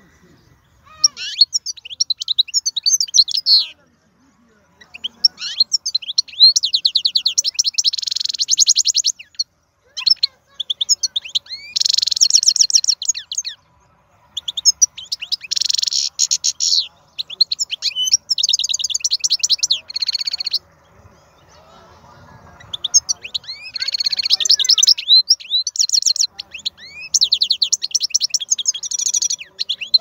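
Male European goldfinch singing: long phrases of fast twittering, liquid notes and buzzy trills, about five bursts of song separated by short pauses.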